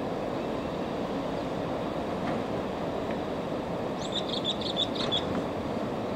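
Water rushing steadily down a concrete dam spillway. About four seconds in, a bird calls a quick run of about six short high notes.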